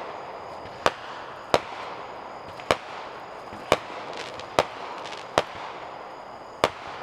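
Fireworks being set off around the neighbourhood: seven sharp bangs at uneven intervals, roughly one every second or so, over a steady background hiss.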